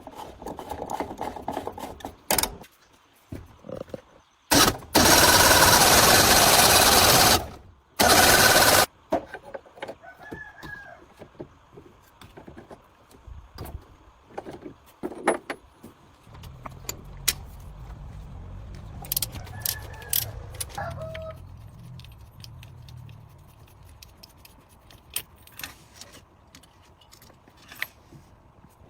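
Metal parts and tools clinking and knocking during workshop repair work, with two loud bursts of hissing noise about five and eight seconds in, the first lasting nearly three seconds. A low hum runs through the middle stretch.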